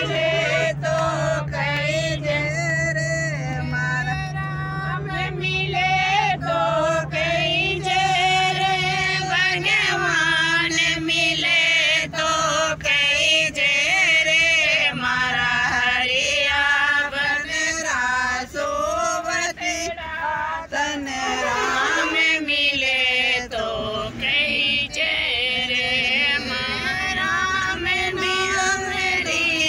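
Women singing a Marwari devotional song (bhajan) together, with long wavering held notes. A steady low hum lies under the first half and stops about halfway through.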